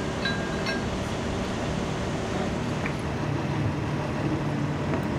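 Engine idling steadily, a low even hum, with a few short high metallic ticks about half a second in.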